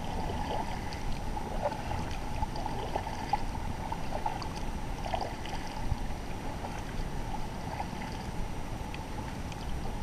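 Double-bladed kayak paddle dipping into the water stroke after stroke beside a plastic sit-on-top kayak, with many small splashes and trickles.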